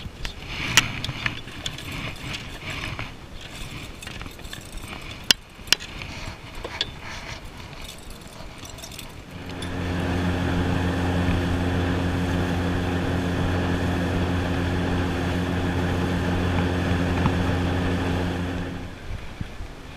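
Sharp clicks and knocks as the landing net and gear are handled in the boat. About nine seconds in, a boat motor starts running at a steady, even pitch for about nine seconds, then fades out.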